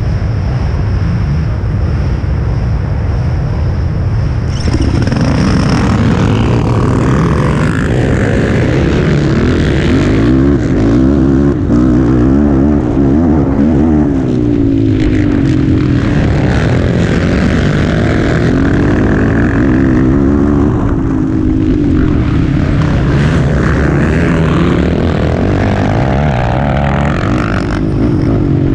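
Racing ATV engines, revving hard and jumping in loudness about five seconds in as the quads launch. After that they run at high revs, the pitch rising and falling again and again through the gears and the throttle.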